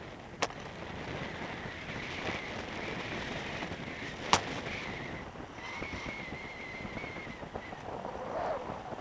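A car rolling slowly, heard from inside its cabin: steady engine and road noise, broken by two sharp clicks about four seconds apart, the second the loudest.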